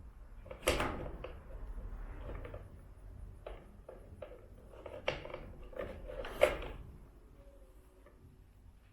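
Workshop handling noises: a series of irregular knocks and clunks, the loudest about a second in and again near the end, with rubbing and scraping between them.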